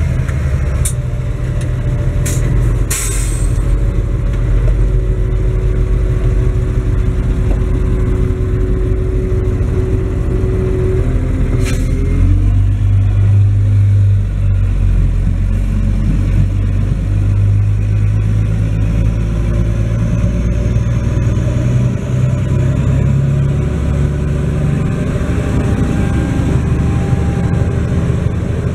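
Schlüter Profi Trac 3500 TVL's 320 hp turbocharged MAN diesel engine running steadily while pulling a disc harrow, heard from inside the cab. There are a few sharp clicks in the first seconds and another about twelve seconds in, where the engine note shifts.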